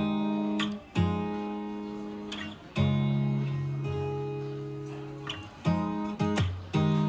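Background music: acoustic guitar chords strummed and left to ring out, a new chord every second or two.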